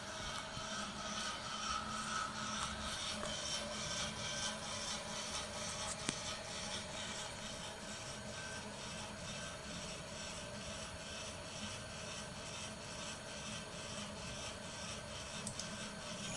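Ceriani David 400 CNC milling cutter scraping through a workpiece with a steady rasping and a regular pulsing, over a thin high whine.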